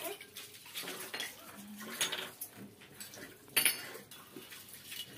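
Metal spoon clinking and scraping against a small steel cup while feeding, in several short sharp clinks; the loudest comes about three and a half seconds in.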